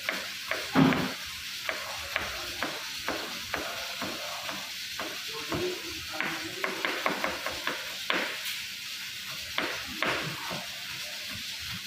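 A chef's knife chopping a red onion on a plastic cutting board: irregular sharp knocks, a few a second, over a steady hiss.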